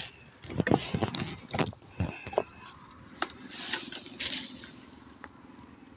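Rustling and brushing of tall grass and leafy weeds as someone pushes through them, with sharp knocks and scrapes of the phone being handled in the first half. About halfway in, the rustling fades and a faint steady drone is left.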